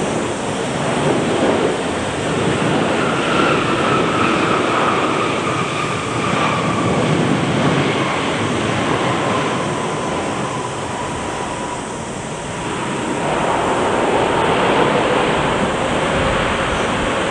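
Boeing 747-8 passing close on its landing, its four GEnx turbofans making a loud, steady jet roar with a whine that slowly falls in pitch.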